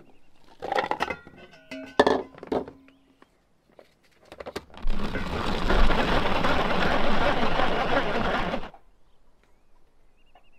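Kitchenware clattering and knocking as it is handled, then a mini food chopper running steadily for about four seconds as its blades cut onion, stopping abruptly.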